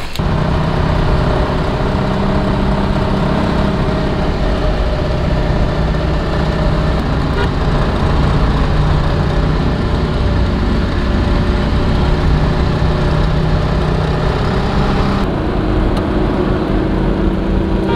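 A jeep's engine running steadily with road noise as it drives, heard from inside the cabin.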